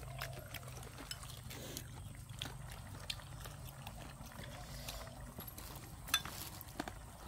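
People chewing tough, rubbery laying-duck meat, with scattered soft clicks of chopsticks and bowls and one sharper click about six seconds in. A faint low hum runs through the first few seconds.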